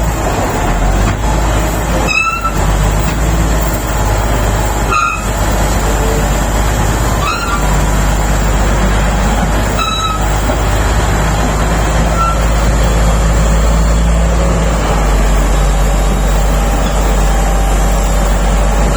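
SD32 bulldozer's diesel engine running steadily under load. Short high-pitched squeaks come about every two and a half seconds during the first half.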